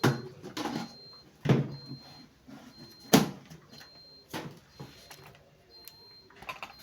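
Handling knocks and clunks at a washing machine, like a lid or dispenser drawer being shut and containers being set down: about five separate knocks, the sharpest about three seconds in.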